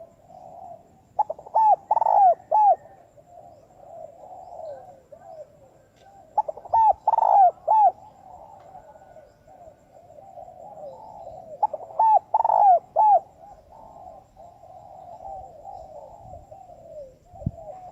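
Spotted dove cooing: a loud phrase of three or four coos about every five seconds, with softer cooing running between them. This is the fast, insistent calling of a decoy bird used to lure wild doves.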